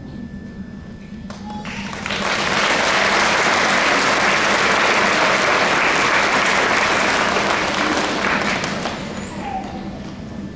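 Audience applauding, swelling in about two seconds in, holding steady, then dying away near the end.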